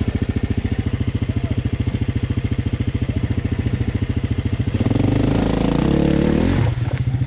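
Beta 200 RR two-stroke enduro motorcycle idling with an even, pulsing beat. About five seconds in it is revved briefly, the pitch rising and then dropping back to idle.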